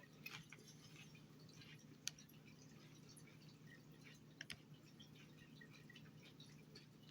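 Near silence: a faint steady room hum with a few faint, scattered clicks.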